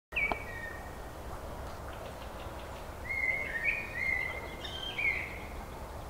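A bird whistling clear notes: a short call right at the start, then a phrase of several held whistles stepping between pitches from about three to five seconds in, over steady low background noise.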